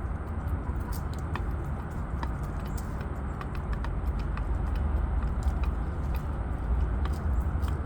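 Chickens pecking at cilantro on a board: a scatter of quick, irregular taps and clicks over a steady low rumble.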